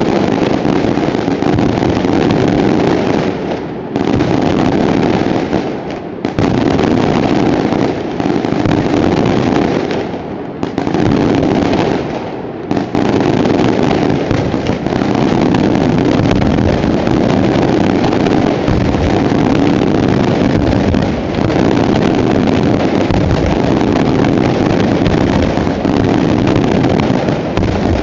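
Daytime fireworks barrage fired from barges on the bay: a dense, unbroken rattle of rapid bangs and crackles, easing briefly four times in the first half.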